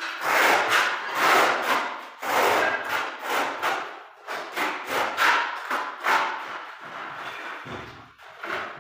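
Steel trowel scraping tile adhesive across a concrete floor in repeated strokes, about one a second.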